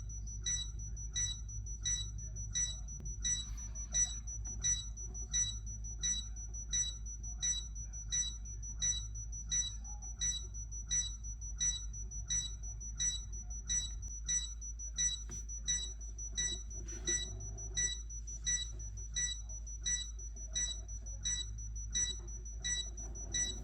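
The short high-pitched electronic beep sound effect used for AUTO's eye in Wall-E and for the bombs in The Incredibles films, repeating evenly about three times every two seconds over a low steady hum.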